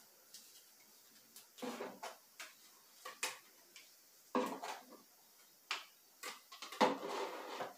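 Plastic hair-product bottles being handled and set down on a cabinet shelf: scattered light clicks and knocks, with short bursts of clatter about two, four and a half, and seven seconds in.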